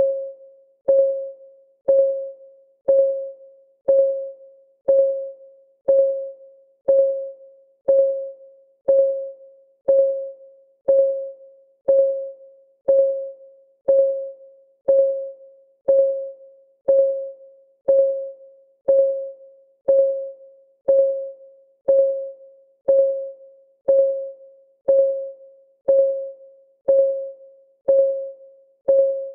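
Countdown timer's clock ticking sound: a short, pitched tick once a second, each dying away quickly, in a perfectly even rhythm.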